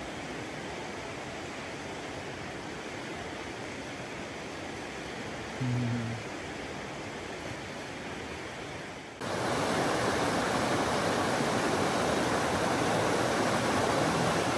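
Steady rush of the McKenzie River's fast-flowing water. It turns suddenly louder about nine seconds in, with a short low-pitched sound just before six seconds.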